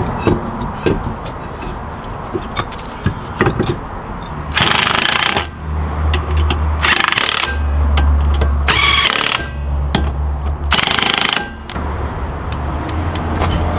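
Cordless impact wrench tightening the lug nuts on a VW Beetle's steel wheel, hammering in four short bursts a couple of seconds apart, after a few seconds of light metal clicks.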